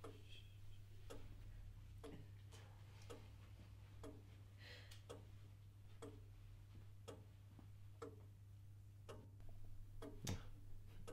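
A clock ticking steadily, about two ticks a second, over a low steady hum in an otherwise quiet room.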